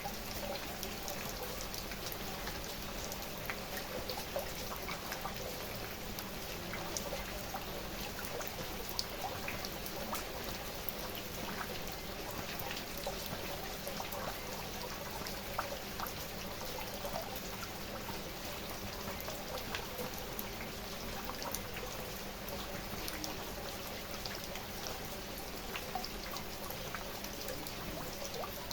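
Steady rain falling, with many individual drops ticking and pattering on a surface over an even hiss.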